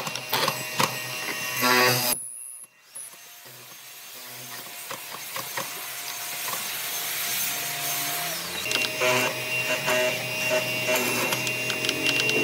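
A power tool working wood, with steady whining tones over dense noise. It cuts out abruptly about two seconds in, then builds back up gradually, and a different steady pitch sets in about two-thirds of the way through.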